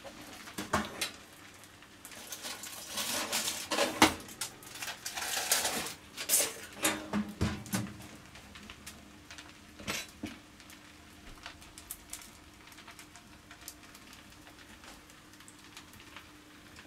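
A utensil clinking and scraping against a pan and dish as flaked smoked haddock is added to a pan of spiced rice. The clinking comes in clusters for the first half or so, then it goes quieter with a few light knocks near the middle.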